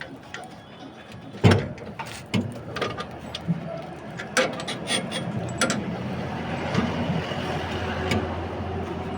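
Sharp metallic clicks and knocks from mechanical work on an e-rickshaw, with a steady low hum setting in about halfway through.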